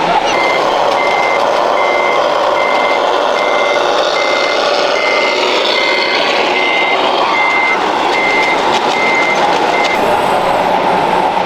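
Reversing beeper of an RC model truck, beeping steadily about once every three-quarters of a second and stopping near the end. Steady background noise runs underneath.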